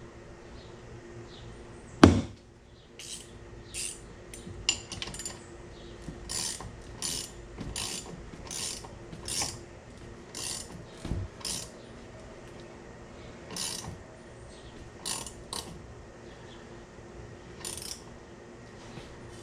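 A 3/4-inch wrench ratcheting as it tightens a nut: a sharp knock about two seconds in, then a run of short clicks, about one or two a second with pauses between strokes.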